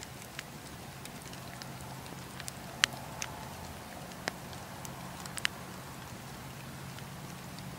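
Wood campfire burning, with a soft hiss and a few scattered sharp crackles and pops from the logs. The loudest pop comes about three seconds in, over a faint steady low hum.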